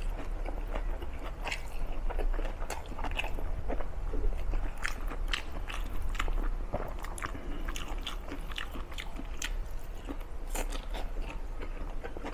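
A man chewing and eating with his fingers, close to a clip-on microphone: many small, sharp mouth clicks and smacks throughout. Between mouthfuls his fingers scrape lightly through rice in a ceramic bowl.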